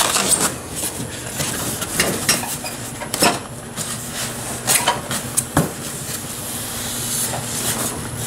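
A stainless-steel electric deep fryer being unpacked from styrofoam packing and a cardboard box: the foam rubs and scrapes, with scattered sharp knocks and clinks of metal being handled.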